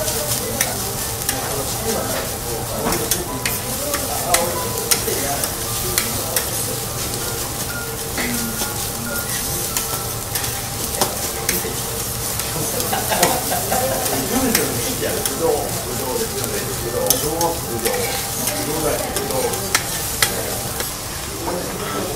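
Fried rice with egg sizzling on a teppanyaki griddle while two metal spatulas chop, scrape and toss it, with frequent sharp clicks of the spatulas striking the hot plate.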